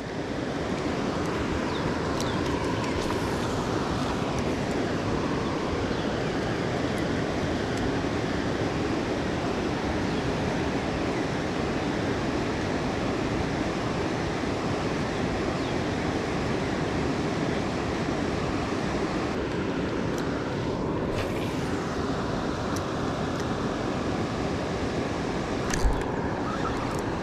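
Steady rushing of floodwater pouring through a river spillway.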